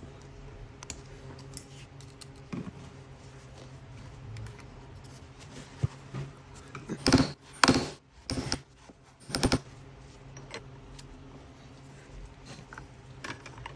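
Small metal parts and hand tools clinking and clattering, with a burst of loud rattling about seven to nine and a half seconds in, over a low steady hum.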